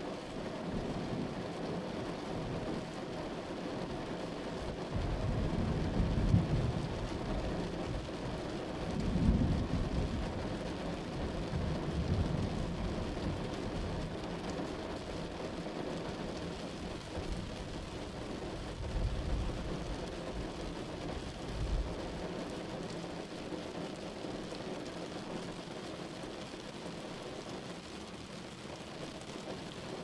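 Steady rain noise with deep rumbles of thunder rolling in several times, the loudest about a fifth and a third of the way through.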